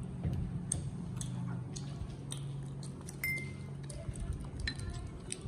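A baby monkey eating off a spoon: small wet mouth sounds and light clicks, with a short ringing clink on a bowl about three seconds in and a fainter one near the end, over a steady low hum.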